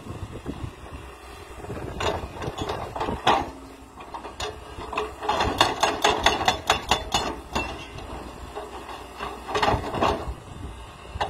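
Doosan tracked excavator's hydraulic breaker hammering rock: a fast, regular run of sharp blows, about five a second, for a couple of seconds in the middle, with scattered strikes before and a few more near the end. The excavator's engine runs steadily underneath.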